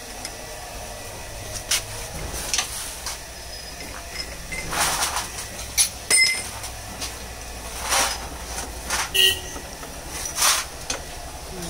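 Scattered metallic clanks and knocks from tools and parts being handled, about eight irregular strikes, over a low steady hum.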